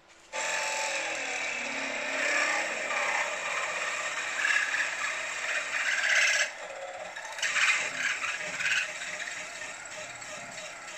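Milling machine running a long twist drill down through a cast wayshaft bracket to bore the way-rod hole, the cut loud and steady at first. About six and a half seconds in it drops back sharply, with a short louder spell a second later, then carries on quieter.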